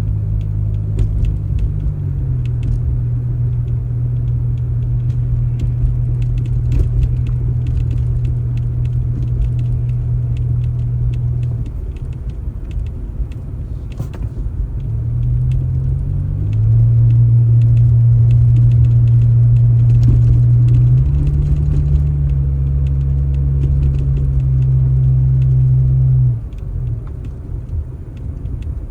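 An engine running under changing throttle, a deep steady hum that steps up and down in pitch. It eases off about halfway, comes back louder, shifts again and drops away sharply near the end, with faint clicks over it.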